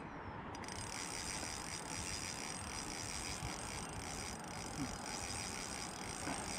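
Spinning reel's drag clicking in a fast, even rhythm as a large hooked fish pulls line off the reel. The drag is slipping against light 6-pound line.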